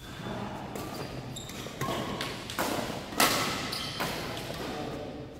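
Badminton rally: several sharp racket-on-shuttlecock hits echoing in a large hall, the loudest a little after three seconds in, with brief shoe squeaks on the court floor.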